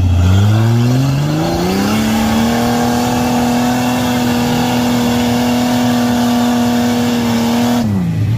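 Off-road 4x4's engine revving up over about two seconds and held at high revs under load as the vehicle climbs a steep dirt bank, then dropping off sharply near the end.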